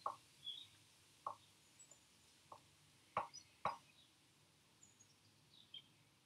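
A few faint, sharp metal clicks as a folding bicycle pedal is turned by hand into the crank arm's threads; the two loudest come about half a second apart a little past the middle. Faint high bird chirps sound now and then.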